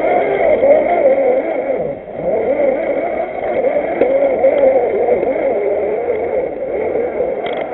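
A 1/6-scale RC Willys jeep's electric motor and gear drivetrain whining as it crawls, the pitch wavering up and down with the throttle and dipping briefly about two seconds in, heard from the onboard camera.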